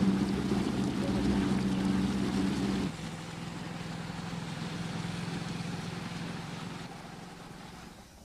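Motorboat engine running with a steady hum, dropping to a quieter level about three seconds in and fading toward the end.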